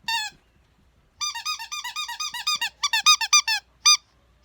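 Squeaky red toy bone being squeezed in quick runs of squeaks, about seven or eight a second, with a pause of about a second near the start.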